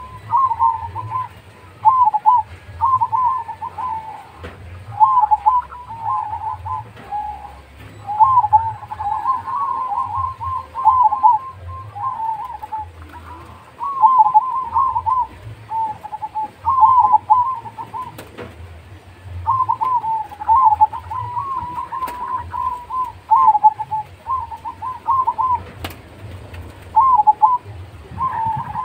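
Zebra dove (perkutut) cooing over and over: rolling phrases of quick, wavering notes, each a second or two long, with short pauses between.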